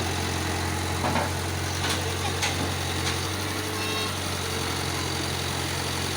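Heavy diesel engine idling steadily, with a few brief knocks about one to two and a half seconds in.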